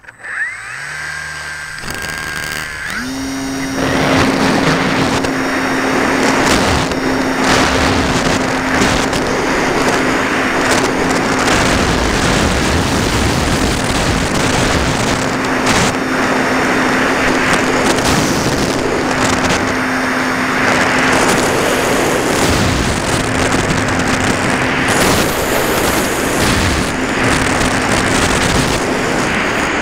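Onboard sound of a ParkZone Radian electric glider under power: its motor and propeller spin up about three seconds in and then hold a steady drone through the climb, under heavy wind rush on the onboard camera. The motor note cuts off near the end.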